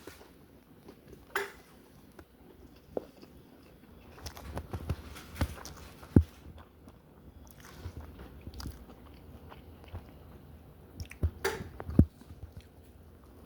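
A person chewing and biting into a spicy chicken sandwich close to the microphone, with scattered clicks and a few sharp knocks, the loudest about six seconds in and near the end.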